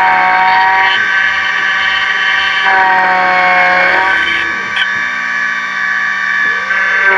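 Miracle A7 Plus computerized key-cutting machine running its cutter as it mills a HU64 Mercedes-Benz key blank: a steady motor whine that shifts in pitch a couple of times as the cut goes on.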